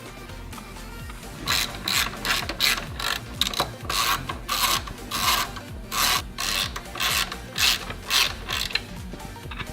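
Ratchet wrench being worked back and forth in short strokes, about two a second, its pawl clicking on each back-swing, tightening the nut on a pitch stop mount. The strokes start about a second and a half in.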